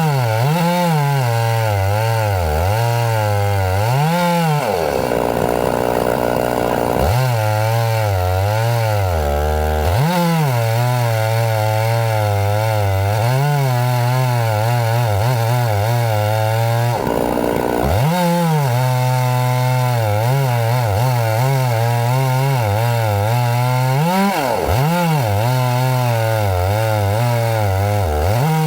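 Two-stroke chainsaw running hard for the whole stretch, its engine pitch wavering up and down, with two short changes in its note, near the start of the second fifth and a little past the middle.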